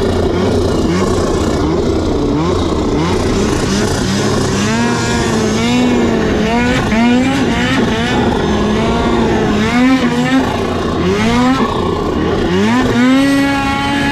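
Snowmobile engine running, its pitch rising and falling over and over as the throttle is worked, with repeated revs from about four or five seconds in.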